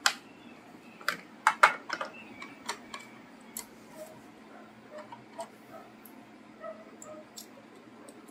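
Plastic clicks and knocks from hands handling a Usha Janome Stella electric sewing machine while opening its front bobbin compartment cover. A quick cluster of sharp clicks in the first two seconds, then scattered lighter ticks, and another sharp click near the end.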